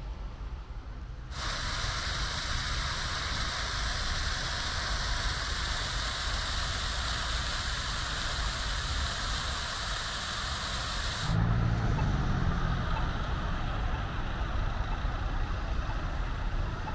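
Fountain jets splashing into a stone basin, a steady rushing hiss that starts a second in and cuts off abruptly about eleven seconds in. It gives way to the low hum of car traffic on a busy city street.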